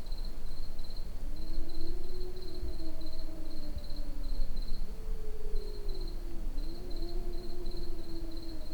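A cat crying in long, drawn-out yowls that rise and fall in pitch, several overlapping one another. Crickets chirp steadily behind it.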